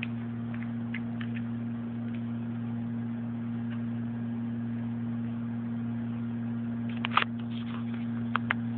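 A steady low hum with a few soft clicks, a brief louder clatter of clicks about seven seconds in, and two sharp clicks near the end.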